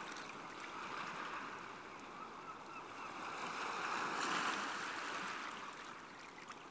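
Ocean surf washing ashore, swelling to its loudest about four seconds in and then easing off.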